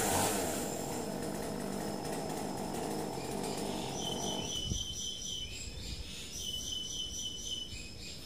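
A chainsaw running steadily, then stopping abruptly a little past halfway. High, rhythmic chirping in short repeated bursts carries on after it.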